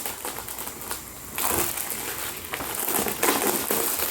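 Plastic packaging of a Blu-ray crinkling and crumpling as it is unwrapped by hand, in irregular rustling bursts that grow louder about a second and a half in.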